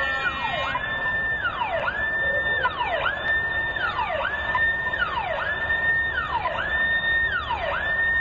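A siren wailing in a repeating cycle: the pitch sweeps up quickly, holds high, then slides back down, about once a second.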